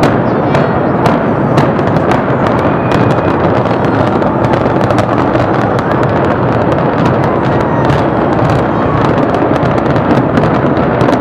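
Demolition charges of a concrete stadium grandstand implosion going off in a rapid, irregular run of sharp bangs over a continuous loud rumble as the structure collapses.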